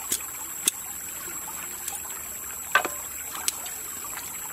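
A knife cutting and splitting green bamboo: a few sharp clicks, and one louder crack with a short ring about three seconds in. Under it, the steady trickle of a shallow stream.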